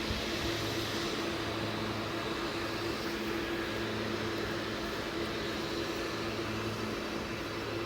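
ES2G Lastochka electric multiple unit giving off a steady electrical hum over a constant rushing noise, with no change in pitch or level.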